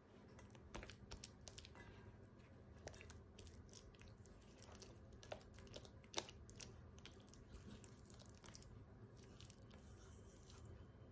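Silicone spatula mashing a block of butter into soft cream cheese in a stainless steel bowl: faint squishing and scraping with scattered small clicks and taps against the bowl, two of them sharper about five and six seconds in.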